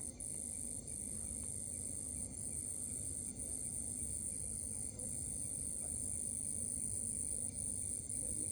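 A cricket of unknown species trilling continuously at a very high pitch, broken by a few brief pauses.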